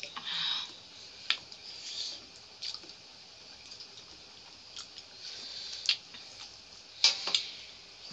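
Eating at close range: chewing and wet squishing of rice and curry mixed by hand on steel plates, with a few sharp clicks, the loudest a pair about seven seconds in.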